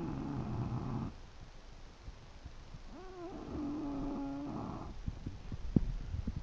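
English bulldog snoring in its sleep: one snore ending about a second in, then a longer one from about three seconds in to nearly five, rising at first and then holding a steady pitch.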